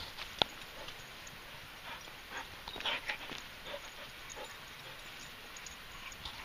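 Dogs moving close by on a walk: scattered patters, clicks and rustles, with a sharp click about half a second in and a busier cluster around the middle.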